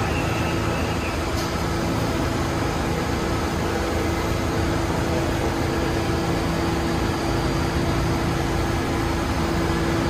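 New York City subway train at a station platform, giving a steady rumble with a constant low hum.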